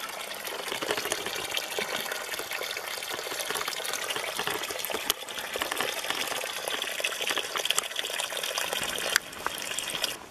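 Running water gushing steadily, an even rushing that drops in level near the end.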